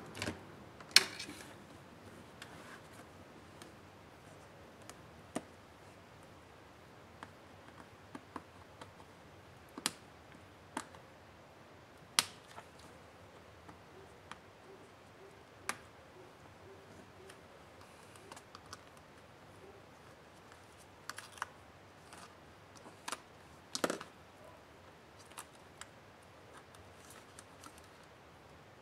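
Scattered sharp plastic clicks and light taps, about a dozen spread irregularly, from an Acer Spin 1 laptop's touchscreen panel and plastic bezel being handled and pried apart by hand and with a small screwdriver.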